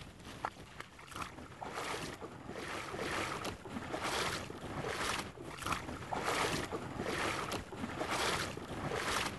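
Legs wading through shallow water, sloshing with each stride at a steady walking pace, a little under one stride a second, getting louder after the first second or so.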